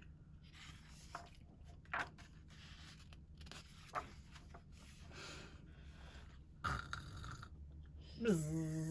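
Pages of a hardcover picture book being turned by hand: soft paper rustles and a few light taps. Near the end a voice starts a long, steady hummed 'zzz' buzz.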